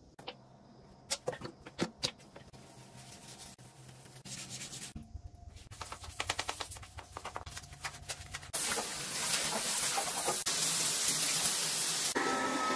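Old toothbrush scrubbing the grout of a tiled shower floor corner in quick, rhythmic strokes. At about eight seconds this gives way to a steady hiss of water spraying from a shower hose over the tiles.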